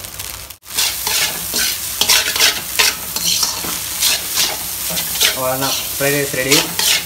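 A metal spatula stirs and scrapes fried rice around a hot wok in quick repeated strokes, with the rice sizzling in the oil.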